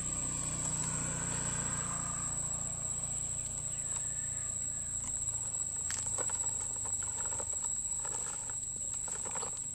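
Plastic toy dump truck dragged on a string over dry leaves and cane litter: a low scraping rumble, then scattered clicks and rustles. Crickets trill steadily in the background.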